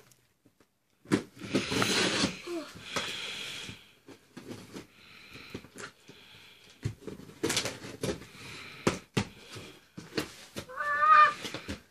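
Scissors cutting the packing tape on a cardboard box, with tape tearing, cardboard flaps rustling and scattered sharp snips. Near the end comes a short, wavering, pitched cry.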